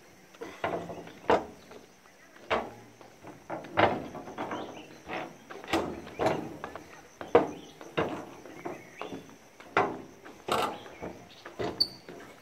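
Footsteps walking along the walkway between the rails of a railway track: irregular knocks, roughly one or two a second. A faint steady high-pitched tone runs underneath.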